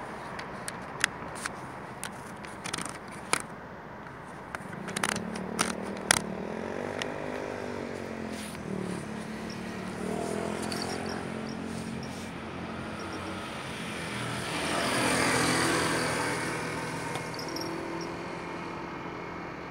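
Street traffic: vehicles passing on the road, one with a pitched engine note that rises and falls about five to nine seconds in, and a louder swell of passing-vehicle noise about fifteen seconds in. Several sharp clicks come in the first six seconds.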